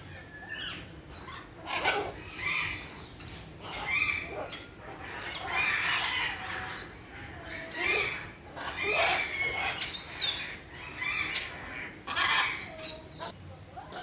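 Parrots squawking: a string of loud, harsh calls, one every second or two.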